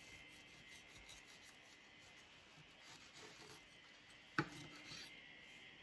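Kitchen knife sawing through a loaf of crumbly cornbread on a wooden cutting board, with faint rasping strokes and one sharp knock about four seconds in.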